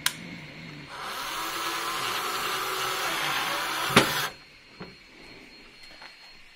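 Cordless drill/driver driving a screw through a metal hinge into a wooden board, the motor whirring steadily for about three seconds and cutting off just after a sharp knock. A few light clicks follow.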